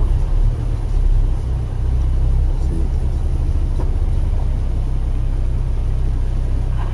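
Car driving along with a steady low rumble of engine and road noise.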